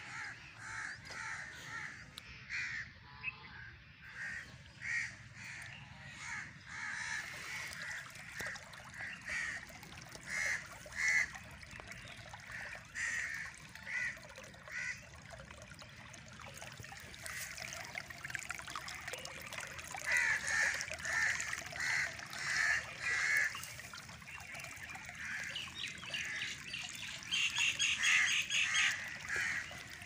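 Birds calling over and over in runs of short calls, over a steady trickle of water running along a shallow grassy channel.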